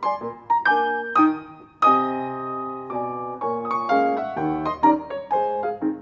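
Solo grand piano playing: short, detached chords and phrases, a brief pause, then a held chord about two seconds in, followed by quicker notes.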